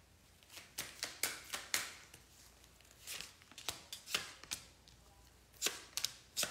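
A deck of oracle cards being shuffled by hand: quick, crisp card snaps and slaps in short irregular bursts.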